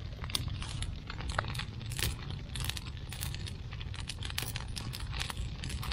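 A heap of dry leaves burning, crackling with quick, irregular pops and snaps over a steady low rumble.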